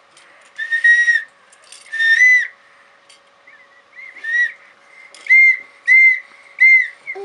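An infant whistling: six short high whistled notes, each arching slightly in pitch, with pauses between them.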